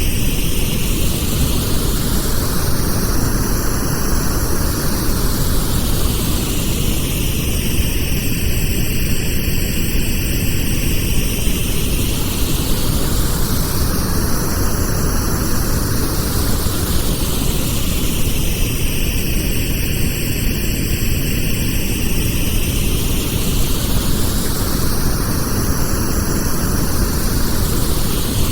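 Pink noise: a steady, even hiss, fuller in the low end. Its tone sweeps slowly up and down, about once every eleven seconds.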